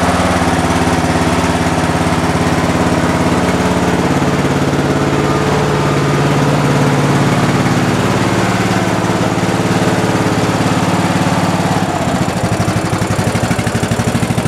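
Riding lawn tractor's 15-horsepower engine running steadily, warming up just after a cold start on full choke. About twelve seconds in its note drops into a more uneven, pulsing beat.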